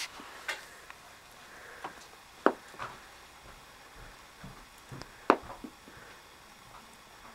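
Hard plastic toy gears clacking against each other as a rabbit noses and tosses them: irregular sharp clicks, about seven in all, the loudest two about two and a half and five seconds in.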